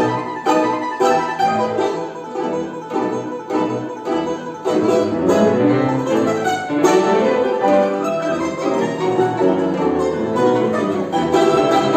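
A string ensemble playing, with quick plucked notes that give way to fuller, held chords about five seconds in.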